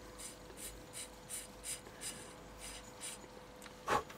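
Faint rhythmic scraping, about three strokes a second, over a thin steady hum, then one loud knock just before the end.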